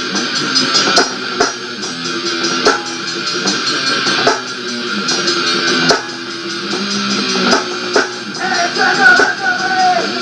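Band music from a demo recording: guitars playing chords over a drum kit, with sharp drum hits throughout and a wavering higher melody line coming in near the end.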